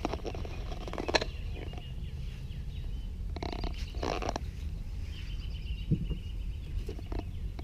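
Steady low rumble of wind and handling on a body-worn camera's microphone, with two short bursts of rustling about three and a half and four seconds in and faint bird chirps.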